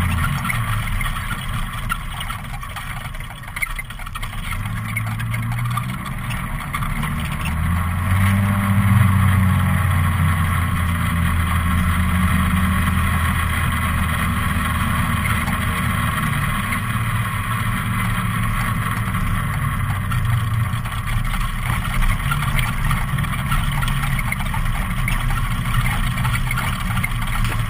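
ATV engine running while under way, its pitch rising and falling with the throttle, pulling hardest around eight seconds in.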